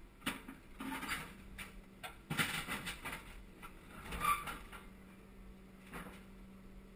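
Wheeled excavator heard from inside its cab: a steady machine hum, with several short bursts of mechanical noise from the boom and sheet-pile grab as it grips a steel sheet pile in a trailer. The loudest bursts come about two and a half and four seconds in.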